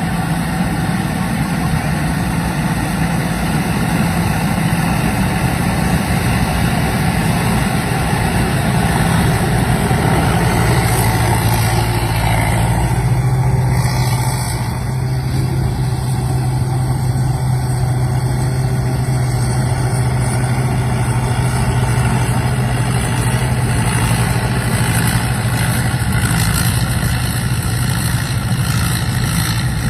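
Rice combine harvester running steadily under load. About eleven seconds in, the engine note drops a little lower and then holds steady.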